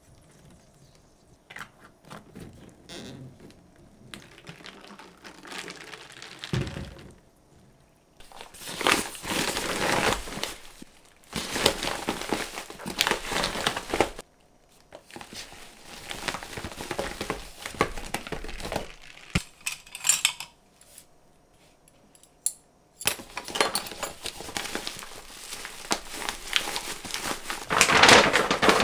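Crinkling and rustling of handled packaging, in bursts a few seconds long with short pauses between them; the loudest burst comes near the end.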